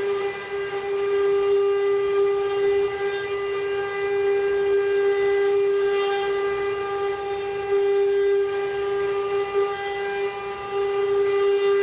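Spindle motors of a multi-head CNC wood carving machine running with a steady, unchanging whine, with faint scattered ticks over it.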